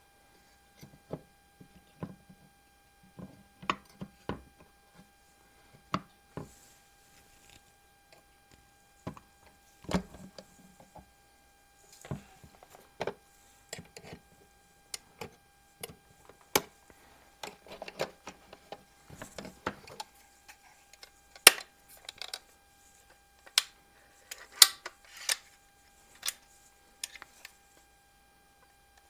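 Clicks, knocks and rattles of the metal and plastic parts of a Daisy 188 BB pistol being fitted together and handled, with a few sharper, louder snaps in the second half as the reassembled gun is worked.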